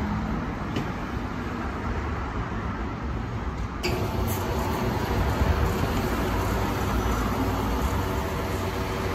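Steady low rumble and hiss of a forecourt fuel pump as petrol is pumped into a car's tank, changing in tone about four seconds in.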